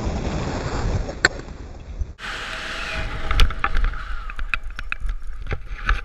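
Wind rushing over a body-mounted camera as a parachutist swoops fast and low over the grass. About two seconds in the rush cuts off abruptly as he slows and lands, leaving quieter rustling with scattered clicks and knocks.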